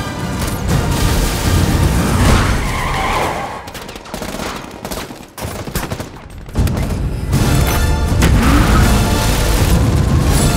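Action film trailer soundtrack: dramatic music mixed with rapid gunfire and car sound effects. The level dips in the middle into short choppy hits, then comes back loud and sustained about six and a half seconds in.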